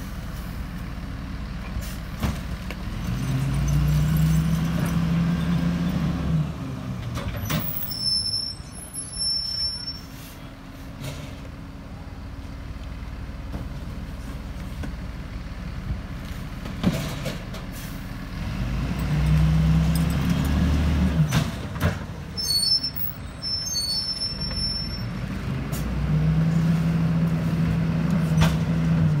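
Freightliner M2 rear-load garbage truck's diesel engine idling, then speeding up and holding a higher steady pitch for a few seconds, three times, as it powers the McNeilus hydraulic packer between cans. There are sharp bangs of cans or the hopper in between.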